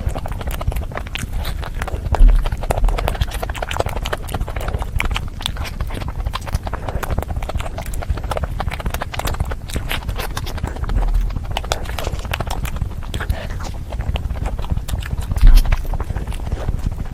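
Close-miked eating: rapid wet chewing clicks and mouth smacking, with a few louder low thumps, about two seconds in and again near the end.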